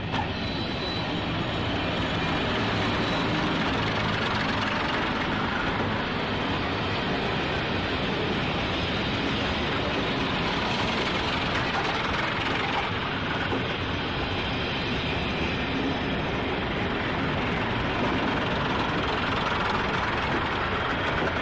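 First-generation diesel multiple unit running slowly past at close range: a steady drone of its underfloor diesel engines mixed with wheel and rail noise as the cars go by.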